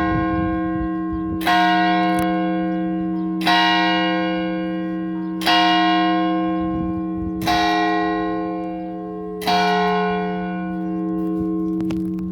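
Church bell of Faro's Santa Maria Cathedral striking seven o'clock. One large bell is struck once every two seconds, five strikes in all. Each stroke rings on into the next, and after the last stroke the hum fades slowly.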